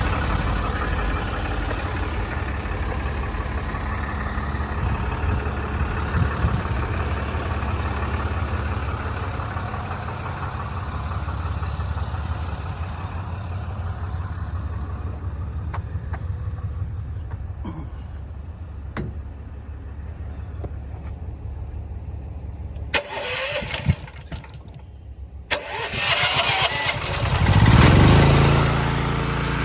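An engine running steadily, then a short lull with a few clicks, then an engine starting: a sudden start, a brief rev and a settle into a steady idle near the end.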